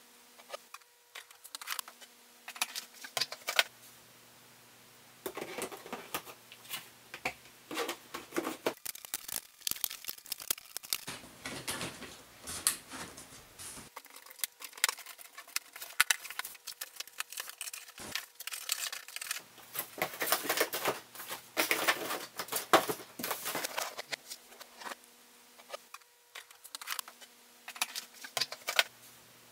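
Glasses clinking and tapping against the corrugated plastic dividers as they are lifted out of and set into a glassware storage box, with the plastic box parts rattling and knocking as they are handled. A faint steady hum sits underneath in the quieter gaps.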